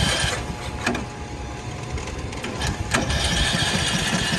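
Craftsman riding lawn mower's replacement engine going on a start attempt after sitting for years, with sharp clicks about a second in and again near three seconds.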